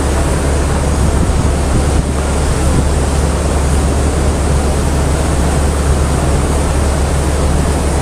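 Hoses spraying high-pressure water jets onto gravel and the steel walls of a barge hold, an even rushing hiss over a steady low machinery drone.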